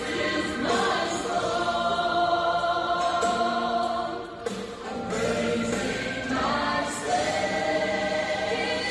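Women singing a gospel song through microphones, in long held notes, with a short break between phrases about halfway through.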